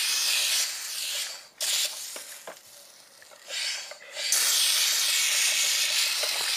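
Air hissing out of a leaking bicycle tyre. The hiss dies away about a second and a half in, returns briefly near four seconds, then runs steadily again.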